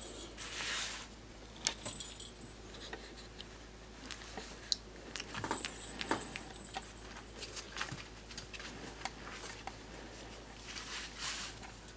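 Rustling and scuffling of a fabric backdrop as a four-week-old corgi puppy walks about on it and is handled, with scattered small clicks and scrapes.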